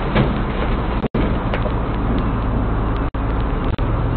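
A large truck's engine running steadily as the truck drives off, a low rumble with a continuous hum underneath. The sound drops out for an instant twice.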